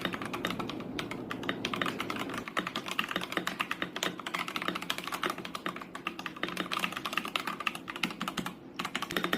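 Typing on an Akko 3068B Plus mechanical keyboard with Akko Jelly Purple tactile switches: a fast, steady run of keystroke clacks, with a brief pause about a second before the end.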